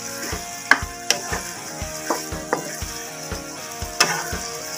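Wooden spatula stirring pork and kangkong stems in a wok, with frying sizzle and irregular clicks and knocks of the spatula against the pan, the loudest just under a second in and near the end.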